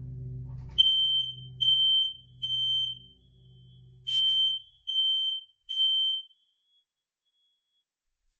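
Smoke detector in alarm under test, sounding a high-pitched beep in the temporal-three pattern: two rounds of three half-second beeps with a pause between. It goes silent after the second round.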